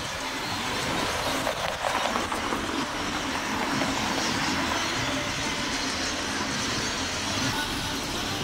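Steady rumble of vehicles passing on a city street, with a faint held tone appearing about three seconds in.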